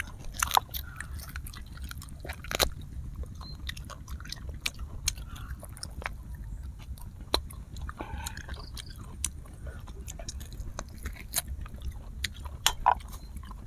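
Close-miked chewing and biting of grilled duck: many short sharp clicks and smacks of mouth and teeth, scattered irregularly over a low steady rumble.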